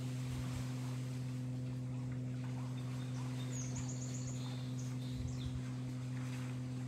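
A steady low hum, with a short, rapid, high-pitched chirping trill about three and a half seconds in.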